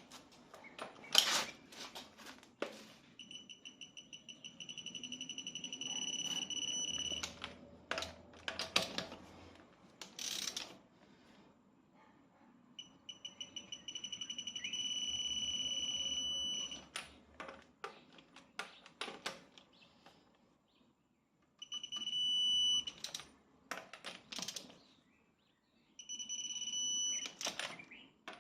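Digital torque wrench beeping as wheel nuts are tightened, four times. Each time the beeps come quicker and merge into a steady high tone, the signal that the set torque, about 120 Nm, has been reached. Sharp clicks and knocks come in between.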